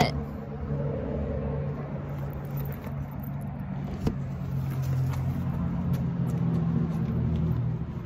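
A car engine running with a low, steady hum that grows a little louder after about five seconds and eases off near the end. A single sharp click sounds about four seconds in.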